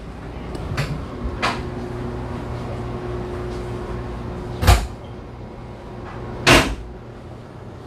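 A door knocking twice, about two seconds apart, with a couple of faint clicks near the start and a steady low hum throughout.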